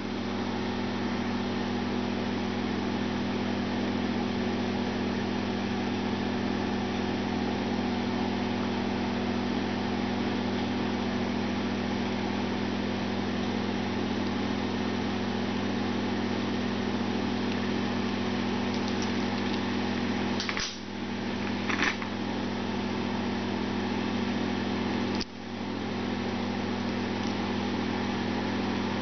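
A steady low mechanical hum, like a fan or machine running in the room. It dips briefly twice about two-thirds of the way through, with a short click just after the first dip.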